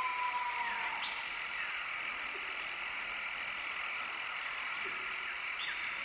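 Steady outdoor ambience: a dense high-pitched chorus, with one long whistle-like note that falls slightly in pitch over the first second and a few faint chirps after it.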